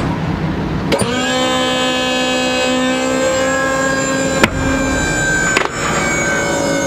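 Motorhome's hydraulic leveling-jack pump motor running with a steady whine after a click about a second in, its pitch stepping and sagging slightly under load. Two sharp clicks come later.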